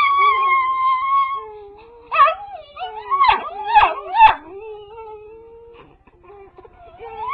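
A dog howling along with a crying baby: one long, high howl held until about a second and a half in, then a cluster of short, broken wails and yelps that bend up and down, dying away to faint whimpers.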